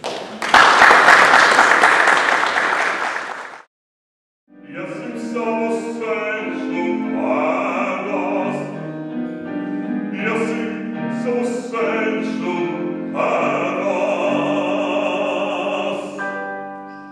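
An audience applauds for about three seconds. After a brief silence, a man sings in an operatic style with long held notes to the end.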